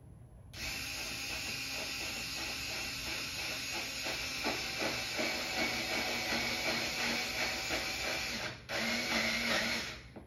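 Cordless drill driving a screw through J-channel into the wall: the motor runs steadily for about eight seconds, stops briefly, then runs again for over a second and stops near the end.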